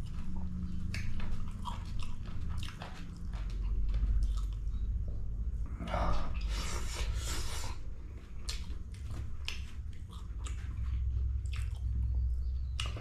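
A person chewing fried meat close to the microphone: wet mouth clicks and smacks throughout, with a louder, noisier stretch of chewing about six seconds in, over a steady low hum.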